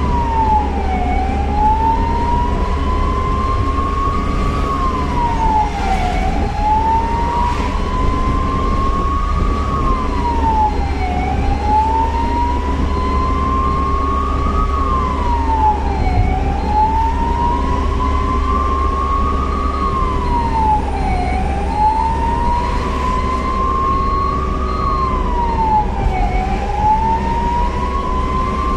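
Ambulance siren wailing in a repeating cycle: the pitch climbs slowly for about four seconds, then drops quickly, about once every five seconds. A steady engine and road rumble runs underneath.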